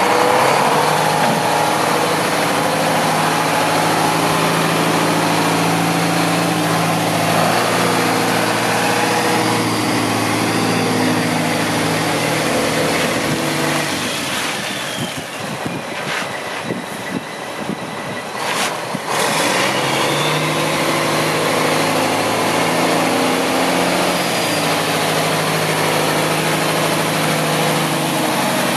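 2001 Mack CH613 tractor's diesel engine running: idling, then pulling away, growing fainter for a few seconds past the middle as the truck moves off, and louder again as it comes back past.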